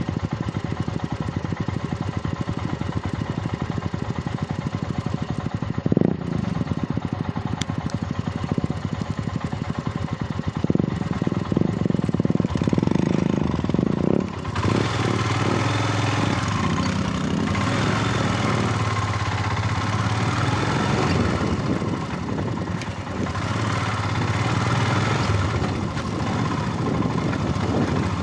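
Motorcycle engine running with an even, pulsing beat. It picks up briefly about six seconds in and again for a few seconds before the halfway point. From about halfway a steady hiss joins the engine and stays.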